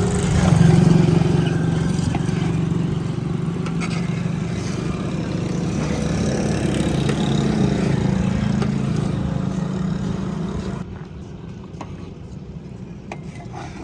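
An engine running steadily with a low, even hum, which cuts off abruptly near the end, leaving quieter background noise with a few faint clicks.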